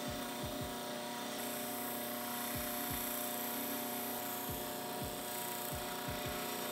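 Baldor bench grinder running steadily with a rubber expanding sanding drum and sandpaper belt, giving a steady motor hum and whine. A steel bolt head is held against the spinning sandpaper to smooth off its casting marks.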